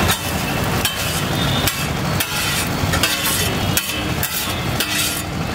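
Metal spatula scraping and knocking against a large iron frying pan, a run of sharp clinks and scrapes about two a second as cooked egg vermicelli is scooped out. A low steady rumble sits underneath.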